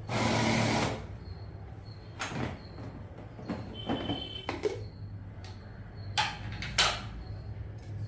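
Food processor motor grinding cauliflower florets for about a second, then stopping. Scattered clicks and knocks follow.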